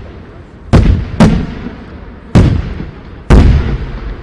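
Fireworks shells bursting: four loud booms, the first two about half a second apart, each trailing off in a long echoing rumble.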